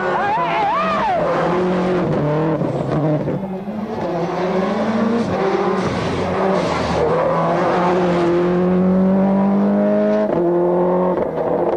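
Subaru Impreza WRC rally car's turbocharged flat-four engine driven hard, its pitch rising under acceleration and dropping sharply at each of several quick gear changes, with one long climb through the revs near the end.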